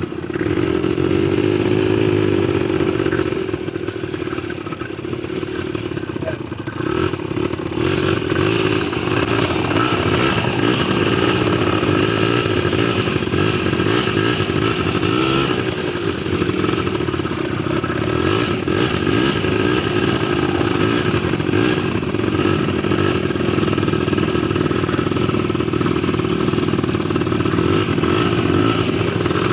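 ATV engine running steadily while riding, its pitch wavering slightly with the throttle and a little quieter about four to seven seconds in.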